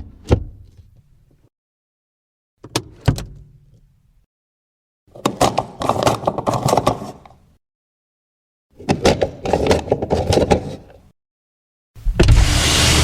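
Separate car-interior sound effects: door latch and handle clicks, first two sharp clicks, then two more, followed by two rattling, clattering bursts of about two seconds each. Near the end a steady loud noise starts suddenly.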